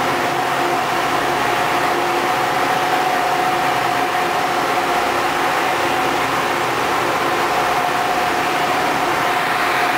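Steady drone of ship engines and machinery with a constant mid-pitched hum over an even hiss, unchanging throughout.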